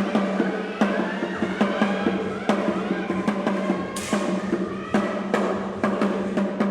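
Background music with a steady drum beat, about two and a half beats a second, with a louder hit about four seconds in.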